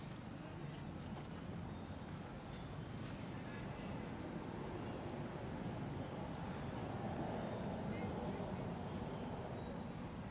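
Insects droning steadily at one high pitch, over a low background rumble.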